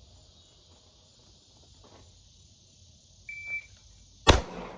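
A shot timer's short high start beep, then about a second later a single 9mm shot from a Glock 17 pistol, loud and sharp with a brief ringing tail.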